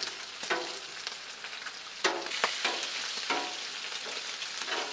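Bacon sizzling and crackling on the steel top of a Blackstone flat-top griddle on low heat, a steady spitting hiss. Several short clicks and scrapes come from metal tongs as the strips are moved across the griddle, about half a second in, twice around two seconds, again after three seconds and near the end.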